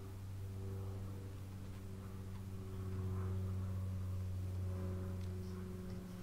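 Room tone dominated by a steady low electrical hum, with a few faint small clicks and light rustling of handling.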